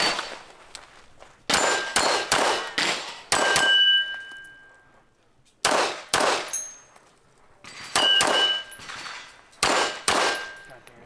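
A string of pistol shots fired at steel targets, in quick groups with short pauses between them, the struck steel plates ringing with a clear held tone after many of the hits.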